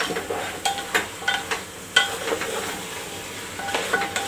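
Chicken and onion sizzling as they are sautéed in a pressure cooker, with a spatula stirring and scraping against the pot. The scrapes and knocks come in short clusters, with a quieter spell a little past the middle.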